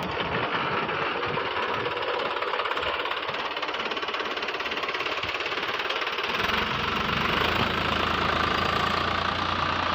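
Tractor engine under load driving a 36-blade rotavator through soil: a steady, dense mechanical running noise that includes the growl from the rotavator's gearbox, which the owner complains of on this new machine. A low hum grows louder about six seconds in.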